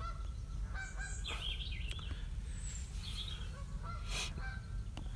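Geese honking on and off in short calls, with a higher gliding bird call in between, over a steady low rumble.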